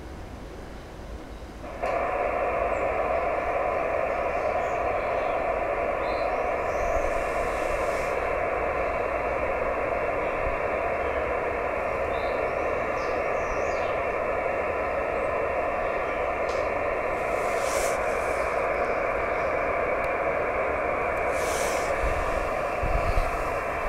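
Steady hiss of band noise from the Icom IC-910H transceiver's receiver on 432 MHz SSB, cut off sharply above and below like a narrow voice-radio passband. It switches on suddenly about two seconds in, as the station drops out of transmit and starts listening for the moonbounce echo buried in the noise.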